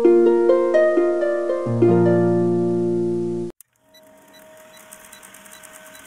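Intro music of plucked strings: single notes step upward and ring on over a low sustained chord, then stop abruptly about three and a half seconds in. A faint old-film countdown effect follows: hiss with a steady tone and quick regular ticking.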